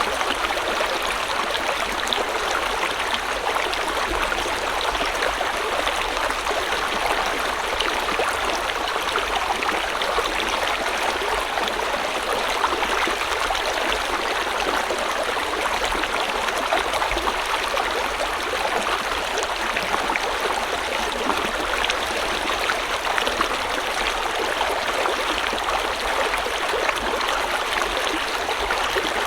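A river or stream flowing steadily over rocks, an even rushing and babbling of water with no change in level.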